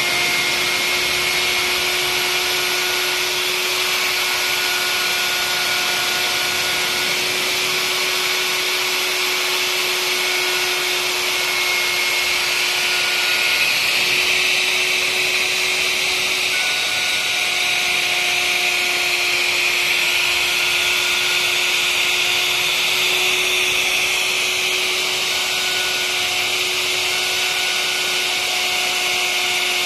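Electric plunge router running steadily at high speed, its bit cutting into a wooden panel: a constant motor whine with a hiss of cutting over it.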